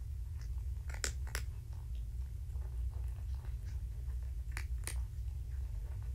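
Steady low hum with a few faint, sharp clicks, two close together about a second in and two more near the end.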